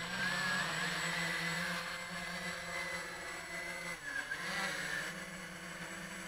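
Walkera QR X350 quadcopter's four brushless motors and propellers whirring as it lifts off and flies, a steady hum with a higher whine that wavers in pitch as the throttle changes.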